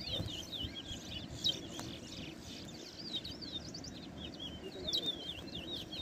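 Caged towa-towa (seed finch) songbirds singing in a song-counting contest: quick, repeated chirping phrases of short sliding notes, one phrase after another.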